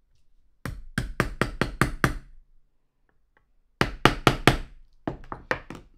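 Small ball-peen hammer tapping a punch to drive a roll pin into an air rifle trigger block. The taps come in a quick run of about eight, then a second run of four or five about four seconds in, followed by a few lighter taps.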